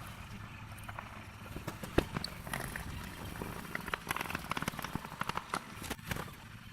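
Irregular light clicks and taps of small parts being handled, over a faint steady low background.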